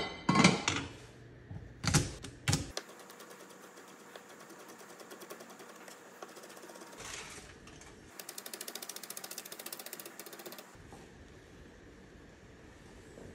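Chef's knife chopping green onions on a wooden cutting board in a fast, even run of ticks, loudest for a few seconds past the middle. A few loud knocks come in the first three seconds.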